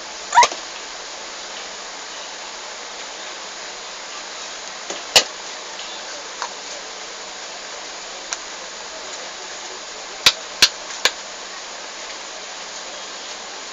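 Sharp clicks and knocks of red plastic lids on shop-counter jars being handled: one at the start with a brief rising squeak, one about five seconds in, and three quick ones near the end, over steady background noise.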